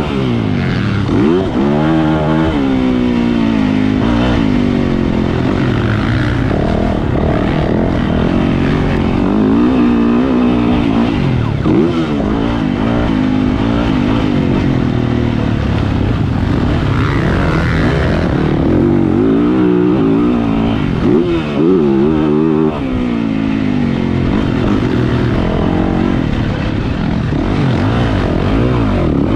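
Yamaha YZ450F's single-cylinder four-stroke engine at race pace, its pitch rising and falling again and again as the throttle opens and shuts through the gears.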